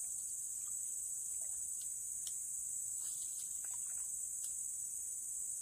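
Steady, high-pitched drone of an insect chorus, with a few faint short chirps around the middle.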